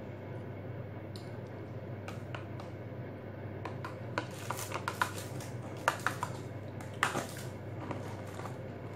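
Spoon scraping and clicking against a small plastic dessert cup during eating: light, scattered clicks that come more often from about halfway through, over a steady low hum. Near the end, plastic food packaging is handled.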